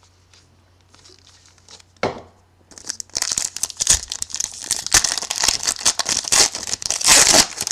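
A trading card pack's plastic wrapper being torn open and crinkled by hand. There is a single click about two seconds in, then a long run of crinkling and tearing from about three seconds on.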